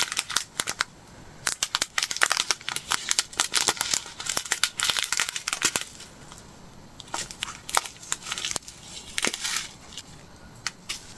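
Small plastic bags of square diamond-painting drills being handled: the bags crinkle and the resin drills rattle and click inside them, in bursts with short pauses between.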